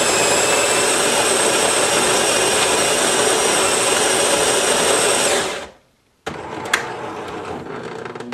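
Jura Capresso Impressa F9 super-automatic espresso machine's built-in grinder grinding beans for a strong coffee: a loud, steady whirring whine that cuts off about five and a half seconds in. After a moment's silence, a quieter machine hum follows, with a single click.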